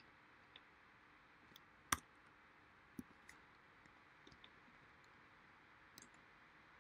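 Scattered computer mouse clicks over faint hiss, the loudest about two seconds in and another about three seconds in.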